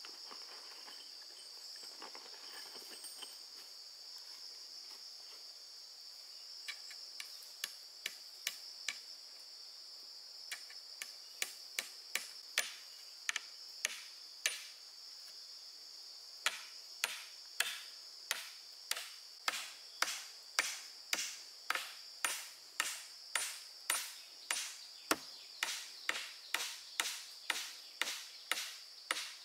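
Repeated sharp chopping strikes, scattered at first from about seven seconds in, then settling into a regular beat of about two a second, over a steady high-pitched insect chorus.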